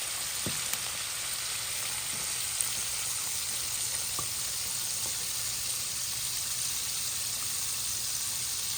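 Chicken wings frying in hot oil: a steady sizzle with a few small pops scattered through it.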